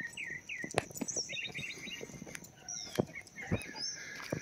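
Several small birds chirping and calling in quick short notes, over a steady high insect buzz, with scattered light knocks and crunches throughout.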